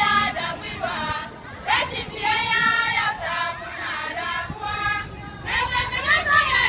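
A choir of girls and young women singing together, with several long held notes.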